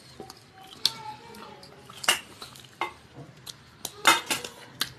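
Eating by hand from stainless steel plates: a string of sharp clicks and clinks against the steel, loudest in a short cluster about four seconds in.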